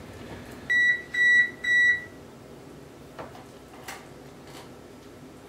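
Three short electronic beeps from a kitchen appliance, about half a second apart, all on the same pitch.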